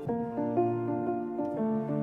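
Soft instrumental background music: a melody of notes changing about every half second over low held bass notes.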